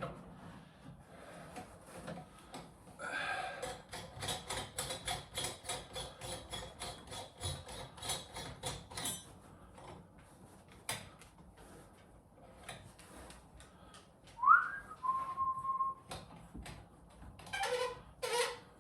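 A person whistles a short note about fourteen seconds in, sliding up and then holding steady. Earlier comes a rapid run of clicks lasting several seconds, with scattered taps from handling parts.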